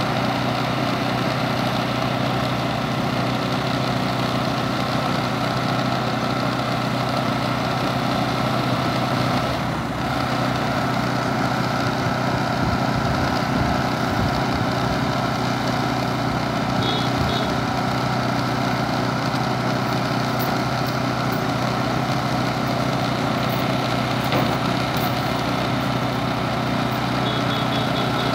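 An engine running steadily at one constant speed, a continuous drone with no change in pitch.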